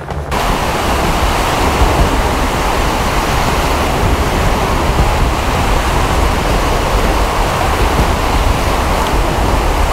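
Steady rush of wind and surf with a heavy low rumble of wind on the microphone, cutting in suddenly just after the start.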